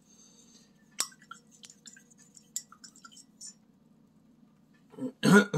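A few light clicks and taps from small objects being handled at a work table, one sharper click about a second in, over a faint steady hum. A short vocal sound near the end.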